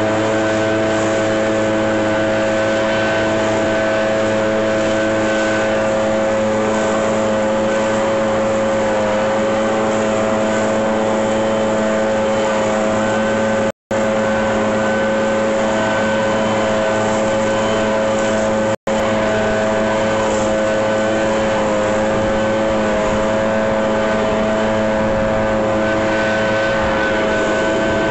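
Gas backpack leaf blower running steadily: a steady engine note under the rush of air from the blower tube as it blows dry leaves.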